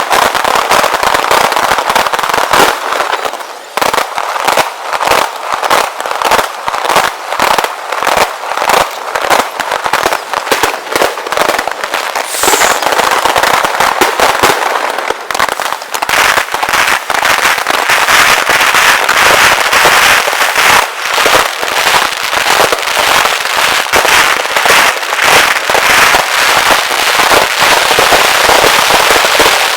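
Fireworks display going off in a dense, continuous barrage of cracks and bangs, with a short whistle about twelve seconds in.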